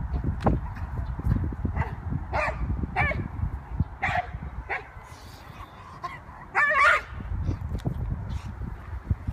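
A dog barking and yipping in short, separate calls every half second to a second or so, with one louder, longer bark about seven seconds in.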